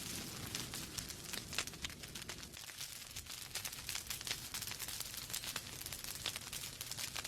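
Log fire in a fireplace crackling, with many small irregular snaps and pops over a steady low rush of burning.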